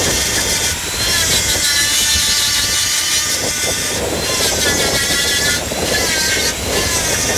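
Die grinder with a conical grinding stone grinding cast iron on a cracked tractor transmission housing: a high whine over the hiss of grinding, its pitch sagging and recovering several times as the stone is pressed into the metal and eased off.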